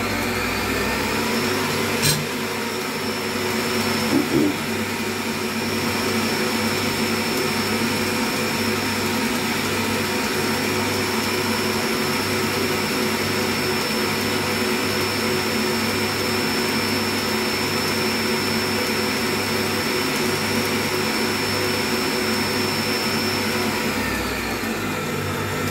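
Oster stand mixer's motor running at high speed, its beater whipping wet batter in a stainless steel bowl. The whine rises as the mixer speeds up at the start, holds steady, then falls as it slows near the end and cuts off. A sharp click about two seconds in.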